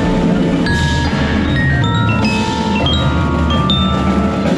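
Xylophone and glockenspiel played with hard mallets: a run of quick single notes at changing pitches, several left ringing briefly.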